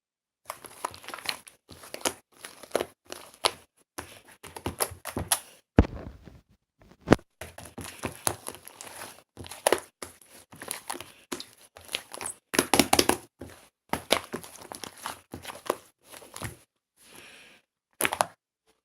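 Slime being squeezed, poked and stretched by hand, giving rapid crackling and popping clicks in uneven bursts with short pauses.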